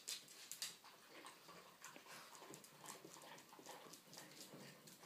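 Boston terriers eating treats from a ceramic bowl and a plastic dish: faint, irregular licking and small clicks of bowls and claws on a laminate floor, with a couple of sharper clicks right at the start.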